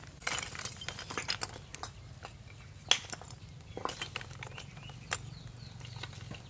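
Scattered light clicks, taps and knocks of cooking utensils being handled, with one sharp clink a little under three seconds in, over a low steady hum.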